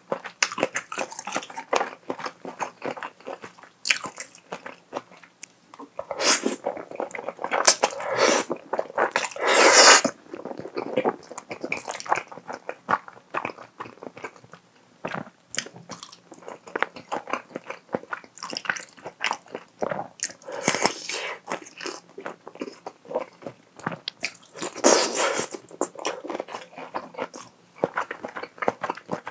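Close-miked eating of creamy toowoomba fettuccine: wet chewing with many small mouth clicks. There are several loud slurps of noodles between about six and ten seconds in, and another late on.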